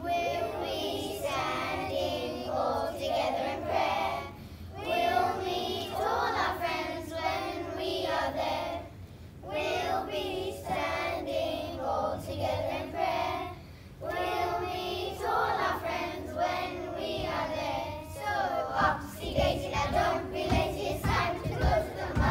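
A group of children singing a nasheed together in phrases with short breaks between them. Low thumps, like feet on the stage, come in over the last few seconds.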